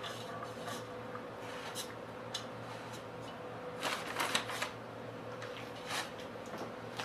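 Hand mixing sliced onions coated in gram flour in an aluminium pot: soft, irregular rustling and squishing of the onion strands, busiest about four seconds in. A faint steady hum runs underneath.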